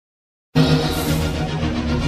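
Silence, then music starts abruptly about half a second in and plays on.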